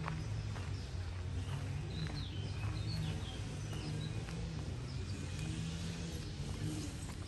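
City ambience: a steady low rumble of distant traffic, with a few short bird chirps about two to three seconds in.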